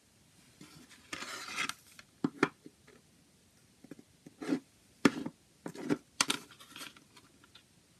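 Plastic CD jewel case picked up off a table and turned over in the hands: a brief scraping slide, then a string of sharp clicks and knocks as it is handled.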